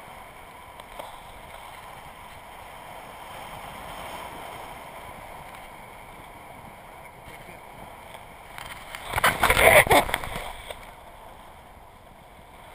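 Wind rushing over a GoPro camera's microphone in flight on a tandem paraglider: a steady rushing noise with a much louder burst lasting about a second and a half, some nine seconds in.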